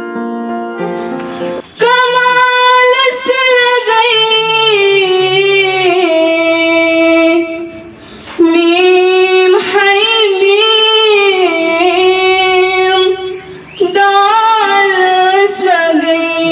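A young girl singing a Kashmiri naat, a devotional song in praise of the Prophet, in three long, ornamented phrases with short breaks between them. Electronic keyboard chords end just before she starts, a second or two in.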